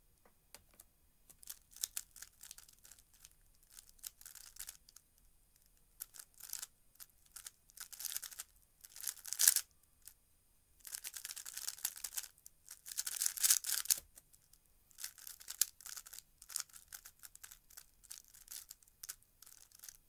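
A 3x3 speedcube being turned fast by hand during a timed solve: bursts of rapid clicking and rustling as the layers snap round, with short pauses between bursts. The turning is loudest around the middle, then goes on lighter and sparser near the end.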